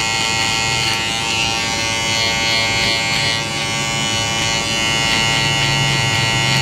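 Electric hair trimmer running with a steady buzz while it edges the hairline around the ear.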